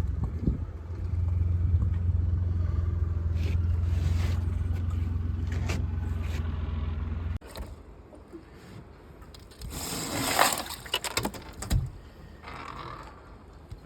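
An engine idling with a steady low hum, then cutting off suddenly about seven seconds in as it is switched off. A few scattered knocks and a short rushing noise follow.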